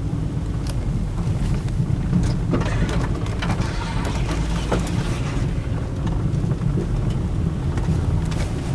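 Car cabin road noise: a steady low rumble of engine and tyres, with scattered small knocks and rattles from the car going over a bumpy road.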